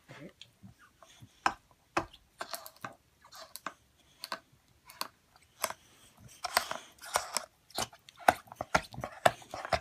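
Close-up chewing on something crunchy: irregular sharp crunches and clicks that come faster and louder in the second half.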